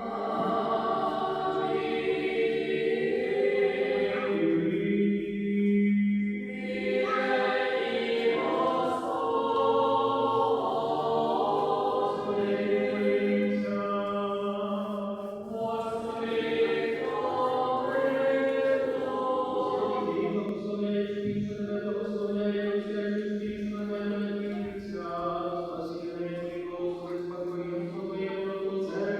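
A church choir singing a slow liturgical chant, several voices moving above a steadily held low note.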